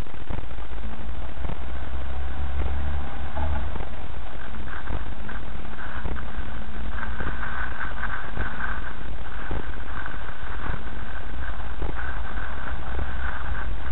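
A car driving slowly over a rutted dirt track: a steady low engine and road rumble with frequent short knocks and rattles from the rough ground.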